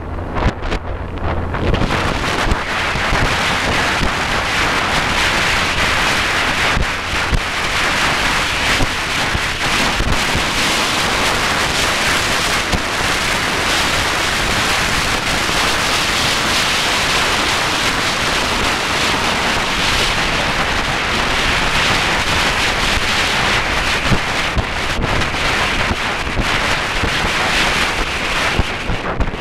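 Wind buffeting the microphone of a fast-moving boat, over a steady rush of water and motor noise, with a few brief knocks.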